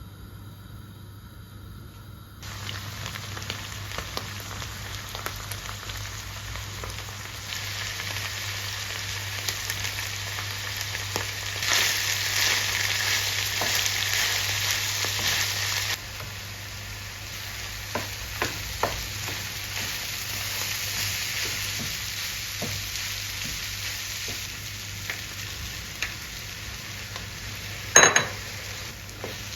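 Food sizzling in a frying pan while it is stirred, with scattered clicks of the utensil against the pan. The sizzling starts about two seconds in, is loudest in the middle, and there is one sharp knock near the end.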